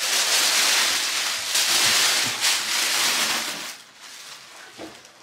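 Tissue paper rustling and crinkling loudly as it is pulled out of a gift box, dying down after about three and a half seconds.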